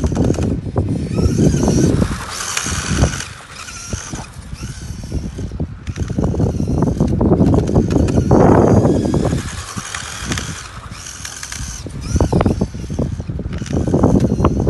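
Tamiya FF01 RC car's broken drivetrain clattering and crackling in uneven bursts, like exhaust pops, over a high whine that rises and falls with the throttle. The rattle comes from broken drivetrain components.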